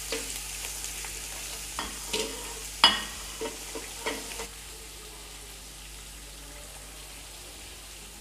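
Sliced onions sizzling in hot oil in a pot as a silicone spatula stirs them. Several knocks of the spatula against the pot come in the middle, the loudest about three seconds in, followed by steady sizzling.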